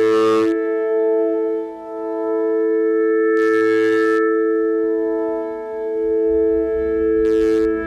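Slow, contemplative post-rock played live by a band: a sustained droning chord, with a noisy swell about every three and a half seconds and a low rumble coming in near the end.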